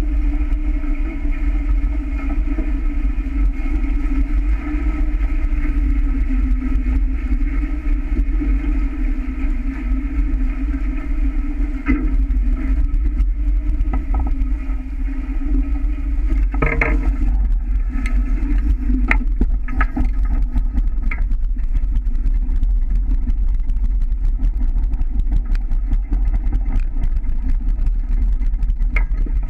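Steady wind rumble on the microphone and the rush of water along the hulls of a catamaran sailing fast. A few knocks come about halfway through.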